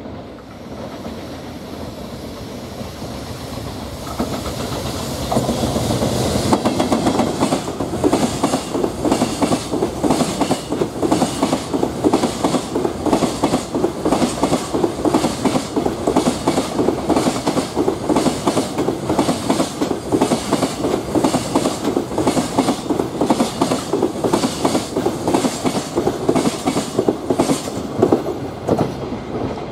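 Container freight train hauled by an electric locomotive passing close by. It grows louder over the first few seconds, then the wagon wheels beat out a steady, rhythmic clickety-clack over the rail joints, which dies away as the last wagon passes near the end.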